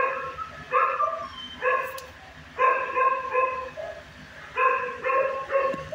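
A dog barking repeatedly, in quick runs of two to four short barks about every second.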